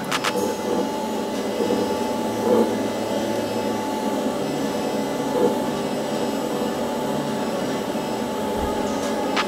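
TIG welding arc on stainless steel burning steadily: an even hiss with faint steady tones and a couple of brief swells as the bead is laid.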